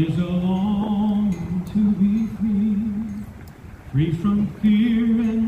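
A solo voice singing two long, drawn-out phrases. Each starts with an upward slide and holds its notes with vibrato. It is the opening of a patriotic song.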